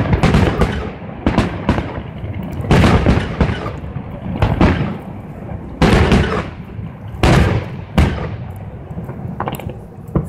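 Aerial fireworks shells bursting in a display: loud booms about every one to two seconds, each trailing off in a rolling echo.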